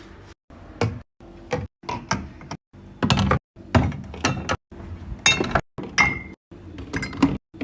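Rapid series of short snippets of containers and packaged items being handled and set down, with knocks, clicks and clunks. Each snippet cuts off abruptly into a brief silence, and one short ringing clink comes about six seconds in.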